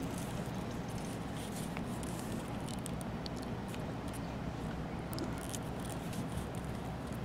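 Faint scattered ticks and rustles of a leather lace being wrapped around a painted PVC pipe handle and fingered into place, over a steady low background hum.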